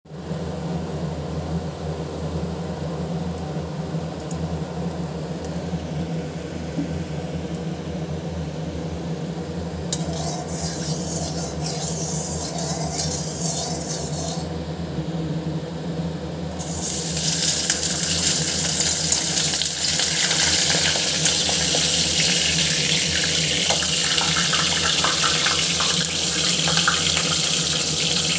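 A turmeric-coated fish head frying in hot oil in an iron wok: a steady, loud sizzle begins about seventeen seconds in, after a briefer crackle of the oil heating around ten seconds. A steady low hum runs underneath throughout.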